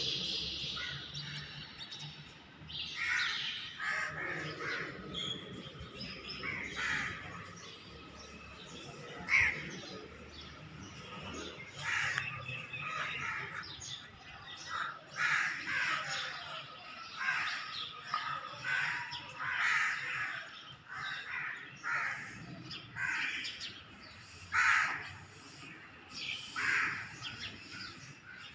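Birds calling over and over, short harsh calls coming every second or two, sometimes overlapping.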